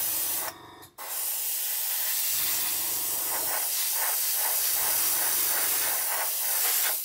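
Airbrush spraying primer: a steady hiss of air and paint that breaks off briefly about half a second in, then runs on, with a low hum coming and going underneath.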